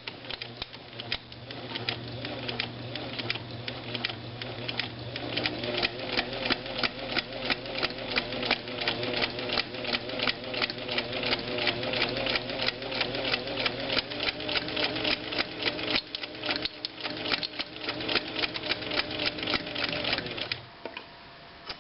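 White 77MG rotary sewing machine running forward at a steady moderate speed: electric motor hum with an even clack at each stitch, about three a second. It stops near the end.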